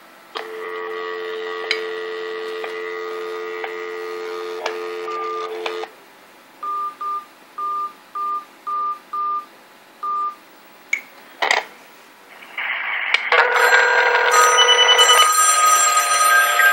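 Telephone dial tone, a steady two-tone hum, then a string of short touch-tone beeps as a number is dialed. After a couple of clicks, a telephone bell starts ringing loudly about twelve seconds in as the call to the answering-machine line goes through.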